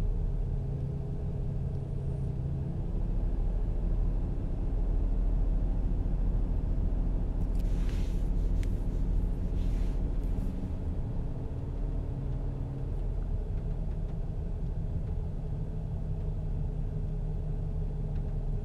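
A steady low rumble of background hum, with soft scuffing of a hand rubbing across photo paper about eight seconds in and again about ten seconds in.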